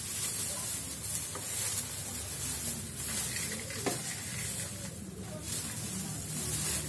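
Plastic rubbish bag rustling and crinkling as a dustpan is pushed into its mouth and sweepings are brushed in with a broom.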